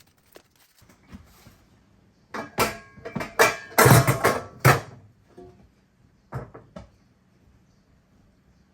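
Clattering of handled objects: a quick run of sharp knocks and bangs, some with a short ring, followed by a few lighter knocks.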